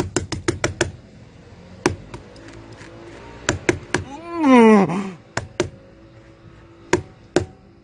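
Sharp taps and clicks from a hand close to the microphone: a quick run of them at the start, then single ones scattered through. About halfway, a person's drawn-out voice slides down in pitch, without words, and it is the loudest sound.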